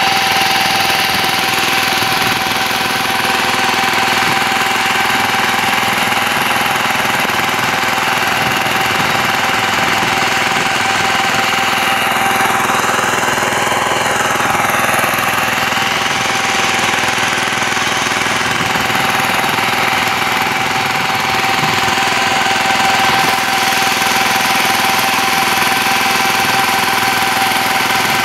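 VST Shakti power tiller's single-cylinder diesel engine running steadily under load as its rotary tines churn the soil, with a constant whine over the engine noise.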